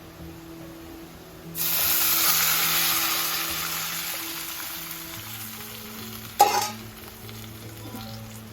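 Hot tempering oil with mustard seeds, garlic, dried chillies and curry leaves bursts into a loud sizzle as the rasam mixture is poured in, fading off over the next few seconds. One sharp clink of a utensil follows a few seconds later.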